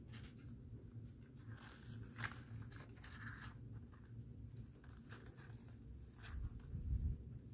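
A cat licking, chewing and pawing at a cardboard advent calendar with plastic treat windows for the treats inside: scattered crinkles and clicks of cardboard and plastic, one sharper click about two seconds in. A low bump near the end.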